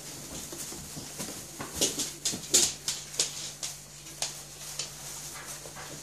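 Golden retriever puppies jostling at a food bowl: a quick run of short, sharp clicks and squeaks, loudest about two to three seconds in, over a low steady hum.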